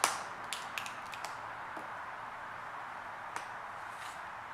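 Scattered light clicks and crackles from vinyl tint film being pressed by hand onto a plastic bumper reflector, several close together in the first second and a couple more later, over a steady faint hiss.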